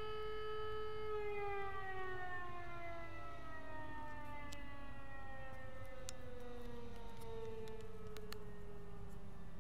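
A siren-like wailing tone with several overtones, held steady at first and then, about a second in, starting a slow, drawn-out fall in pitch. A few faint clicks sound in the second half.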